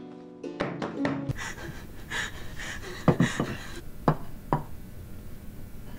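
A plucked guitar phrase cuts off about a second in. Then come on-set foley sounds of objects handled on a desk: soft paper rustling and several sharp knocks and taps.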